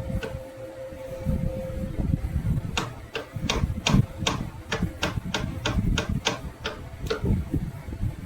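A run of sharp clicks or taps, about three a second for some four seconds, over a low uneven rumble; a faint steady hum dies away before the clicks begin.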